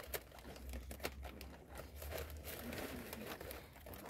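Woven palm-leaf strips rustling and crackling as they are handled and tucked into the weave by hand: a faint, irregular scatter of small crinkles and clicks.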